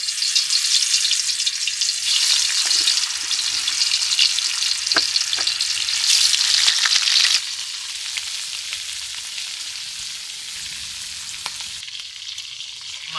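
Pieces of stingray sizzling loudly in hot oil in a wok as they go in, the sizzle settling to a quieter, steady frying about halfway through. A few light clicks of the spatula on the pan.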